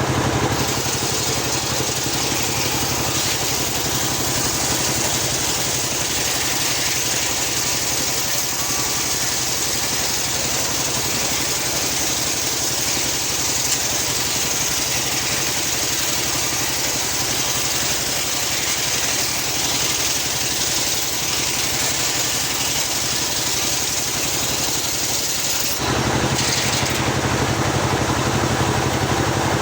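Engine-driven homemade circular sawmill running with its blade cutting lengthwise through a teak log: a steady engine drone under a loud, high cutting hiss. Near the end the sound changes, the hiss easing and the engine coming forward.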